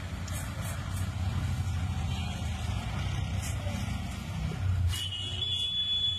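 A steady low engine rumble, with a thin high whine coming in about five seconds in.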